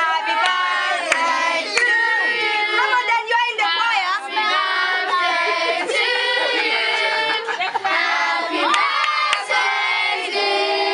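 A crowd of children and adults singing and shouting over one another, with scattered sharp hand claps.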